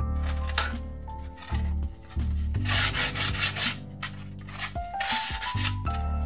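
Hand sanding the edge of a thin plywood panel with a folded sheet of sandpaper, in rough back-and-forth strokes, the longest about midway and near the end.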